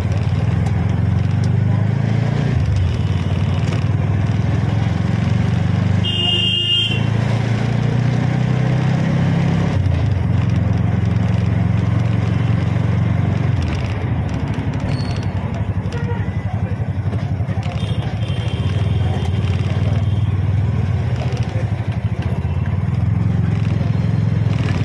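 Auto rickshaw engine running steadily underneath the ride, its level rising and falling a little with the throttle. A short horn beep sounds about six seconds in, and a fainter horn comes later on.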